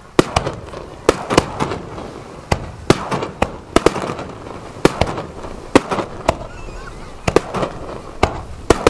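Fireworks display: aerial shells bursting as a dense, irregular run of sharp bangs, nearly twenty in a few seconds, over a steady background din.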